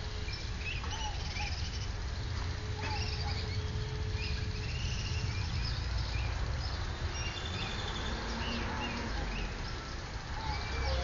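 Small birds chirping and twittering, many short calls overlapping, over a steady low rumble. A faint steady hum sounds for the first four or five seconds, then stops.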